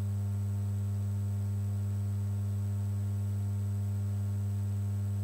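Steady low electrical hum, a single unchanging tone with fainter overtones above it: mains hum in the audio line.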